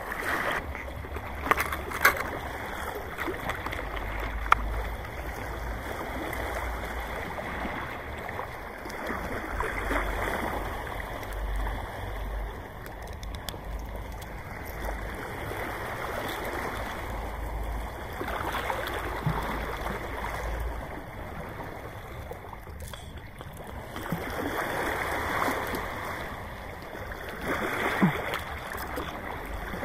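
Small sea waves lapping and washing over shoreline rocks, swelling several times, with a low rumble under them through the first two-thirds. A few sharp clicks come in the first few seconds.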